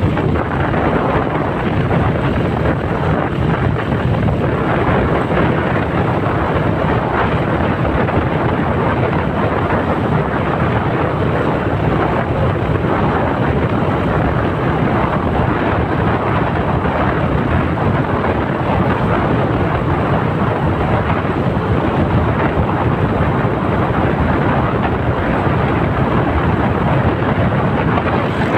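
Steady wind rush buffeting the microphone of a moving motorcycle, with the motorcycle's engine running underneath.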